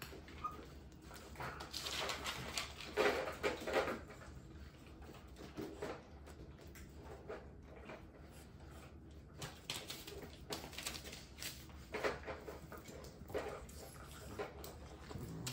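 Bullmastiff puppies at play on a hard floor: scattered scuffles and knocks from the puppies tussling and pulling at their toys, busiest a few seconds in.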